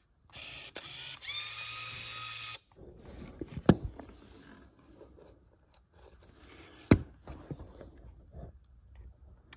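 A Canon Sure Shot 80 Tele compact 35mm camera's built-in motor whirs for about two seconds, its pitch rising partway. Then come two sharp clicks about three seconds apart, over faint handling noise of the camera body.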